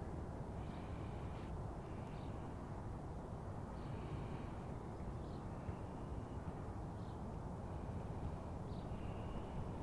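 Outdoor ambience of a steady low rumble, with short bird calls about every second.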